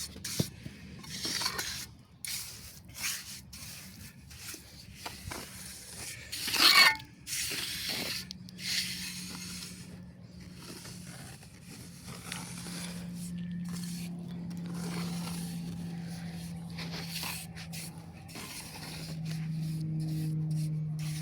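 Wet cement mortar being scraped and spread into a form with a trowel: irregular scrapes and rubs. A low steady drone comes in from about eight seconds and dips slightly in pitch near the end.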